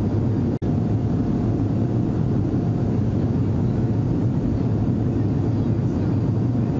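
Steady low rumble of a jet airliner in flight, like cabin noise, with a momentary cut-out just over half a second in.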